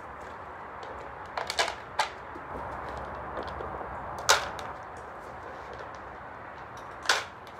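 Sharp clatters of cat food bowls and dry kibble being handled and set down. There is a quick cluster of knocks about a second and a half in, a louder knock a little past four seconds, and another near the end, over a steady background hiss.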